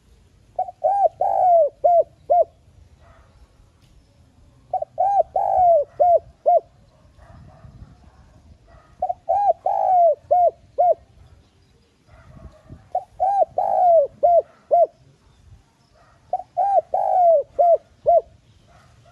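Spotted dove cooing: five phrases about four seconds apart, each a quick run of short coos with one longer, drawn-out coo in the middle.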